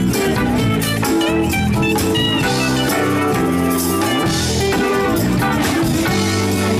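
Live band playing: electric guitar lines with bent notes over a steady drum kit beat.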